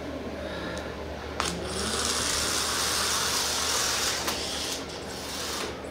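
Small electric motor of a battery-powered toy mouse whirring steadily for about three seconds, starting with a click about a second and a half in and dying away near the end.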